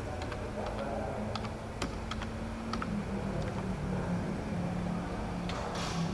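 Keys being pressed on a self check-in kiosk's keyboard as a booking code is typed in: a series of irregular clicks, then a short noisy burst near the end, over a steady low hum.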